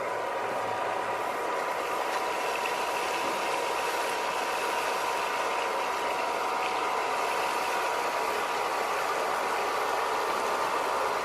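Small electric motor and fan of a homemade vacuum cleaner running steadily: a constant whine over a rush of air.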